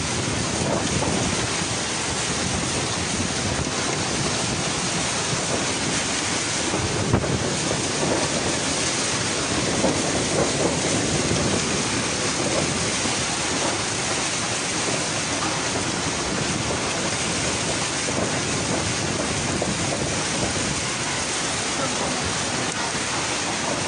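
Typhoon wind and heavy rain, a steady rushing noise, with one brief sharp knock about seven seconds in.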